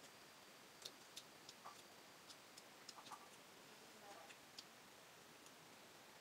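Faint, irregular clicks of a metal spoon knocking against a stone mortar bowl as pieces of fruit are scooped up, about a dozen over a few seconds, over a quiet hiss.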